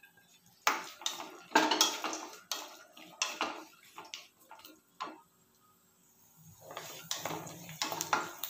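Spatula scraping and knocking against a kadhai while stirring chopped dry fruits frying in ghee: irregular scrapes and taps, a short lull a little past the middle, then busier stirring near the end.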